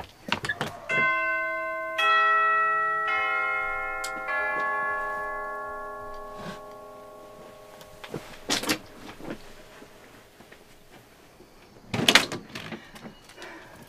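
A four-note doorbell chime, the notes about a second apart, each ringing on and dying away slowly. Later come a few sharp knocks, the loudest about twelve seconds in.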